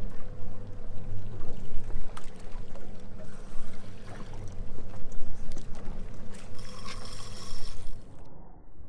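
Boat's outboard engines running at idle, with water lapping and splashing against the hull and scattered clicks.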